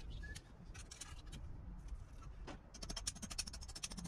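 Hand tools clicking on steel mini-split wall brackets and their masonry anchors: scattered light clicks, then a quick, even run of sharp clicks over the last second and a half. A low background rumble sits underneath.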